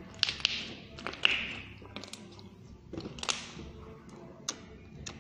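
Hand squeezing and kneading slime: irregular sharp wet pops and clicks, some trailing off in a short squishy hiss, about seven times.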